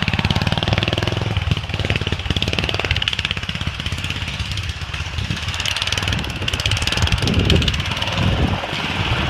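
Riding lawnmower's small engine running hard under load, a rapid, steady firing beat as it drives over rough ground.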